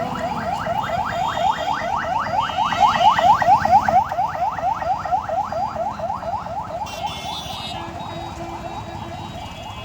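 An electronic alarm or siren making a rapid series of rising chirps, about four or five a second. It is loudest a few seconds in, then fades.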